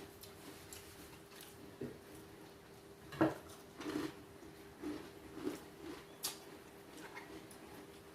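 Close-up eating sounds: scattered chewing and mouth smacks with small clicks of cutlery and dishes, the loudest about three seconds in, over a faint steady hum.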